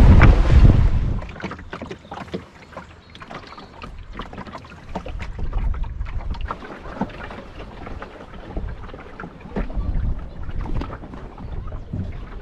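Heavy wind on the microphone for about the first second, then dropping away. After that, water splashing and slapping against a small sailing dinghy's hull, with many short irregular splashes and knocks.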